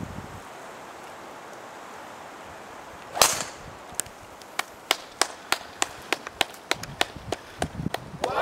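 A golf driver striking a teed-up ball, a single sharp crack about three seconds in and the loudest sound. After it comes a run of short sharp clicks, about three a second.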